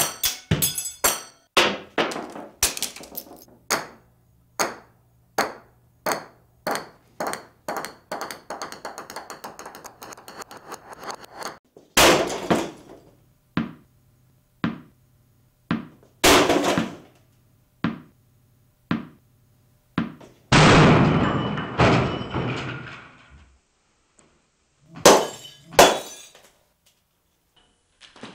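A long series of knocks and thuds, several a second at first, then single louder hits spaced a second or more apart. About two-thirds of the way through comes a longer crash that rings on for a few seconds before fading.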